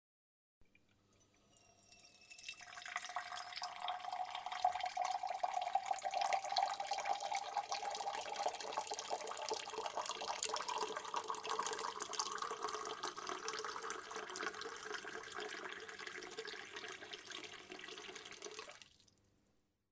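Water running into a cup and filling it. The stream builds up over the first couple of seconds, then its pitch rises slowly and steadily as the cup fills, until the flow stops abruptly near the end.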